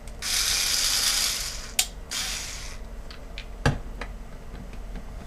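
A screwdriver working on the steel case screws of a computer power supply. There is a steady rasping, ratchet-like burst for about two seconds, then a few sharp clicks.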